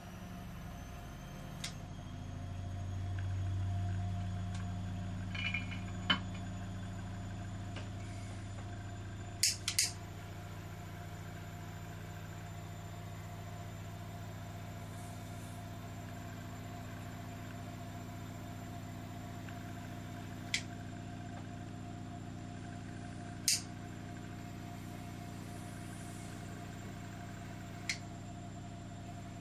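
Butane jet lighter burning with a steady hum, held lit as a flame to light the burner of a small model steam engine. A few sharp clicks break in several times.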